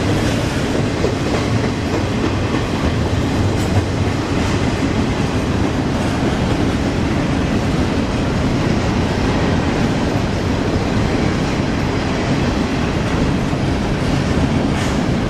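Intermodal freight train's container-laden well cars rolling past: a steady rumble of steel wheels on rail, with an occasional click as wheels cross rail joints.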